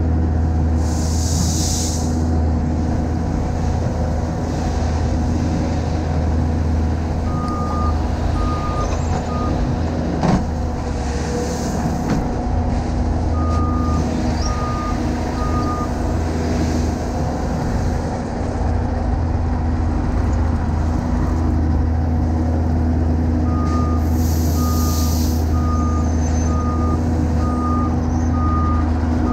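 Diesel engine of a skid steer loader running steadily close up under load. A backup alarm beeps in three runs, about three beeps every two seconds, and there are a few short hisses.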